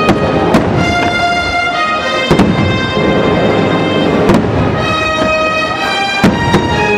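Fireworks shells bursting with several sharp bangs, over loud show music with held notes.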